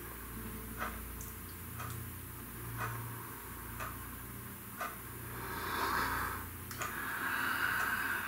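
A clock ticking about once a second over a steady low hum. In the second half a woman breathes out heavily twice, in long breathy rushes.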